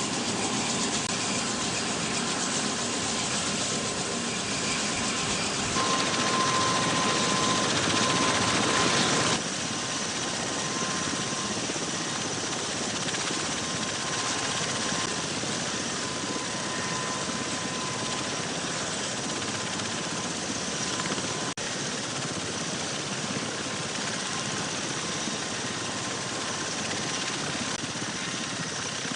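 V-22 Osprey tiltrotor running its two turboshaft engines and proprotors: a steady rush of rotor and engine noise with a thin, steady turbine whine. The sound shifts abruptly about six seconds in and again about nine seconds in, as if between different shots of the aircraft.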